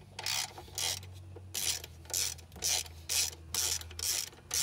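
Socket ratchet wrench being swung back and forth on intake manifold bolts, its pawl giving a short rasping click-run on each stroke, about two strokes a second.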